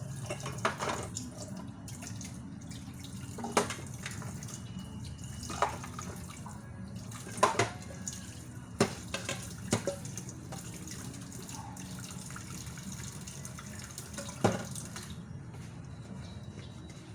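Water running from a kitchen tap into a sink, with scattered clinks and knocks of dishes being handled under it.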